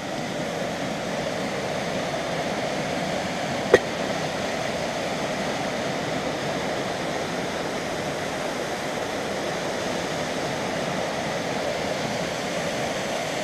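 Small waterfall rushing steadily as white water cascades down a narrow rock chute. A single sharp click sounds about four seconds in.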